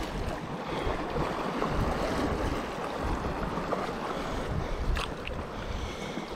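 Wind buffeting the microphone over small waves washing in the shallows, uneven and gusty, with a couple of faint ticks about five seconds in.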